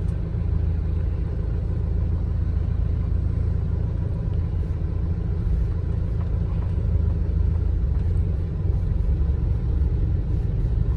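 Steady low rumble of a vehicle's engine and tyres, heard from inside the cabin as it moves slowly.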